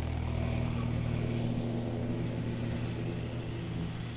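Single-engine Cessna light airplane's piston engine and propeller running at takeoff power, a steady drone that slowly fades as the plane lifts off and climbs away.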